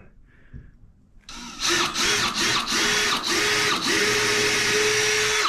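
Power drill boring a hole into a pine board. The motor starts about a second in, runs in a few short stop-start pulses, then runs steadily to the end.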